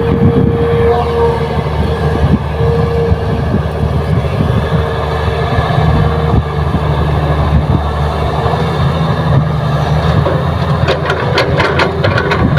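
Heavy diesel machinery, the Kobelco excavator's engine and hydraulics, running steadily with a held tone over the rumble. A quick run of sharp knocks comes near the end.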